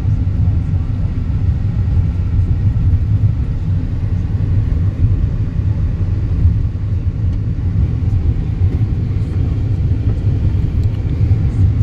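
Steady low rumble of a Hyundai car driving on an unpaved gravel road: tyre and road noise heard from inside the cabin.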